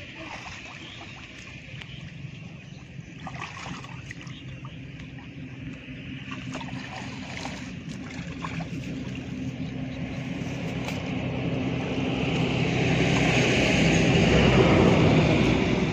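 Shallow muddy water sloshing and splashing as hands grope through the mud of a ditch bottom, over a steady low hum. In the last few seconds a person wades through the water and the noise swells into a louder rush.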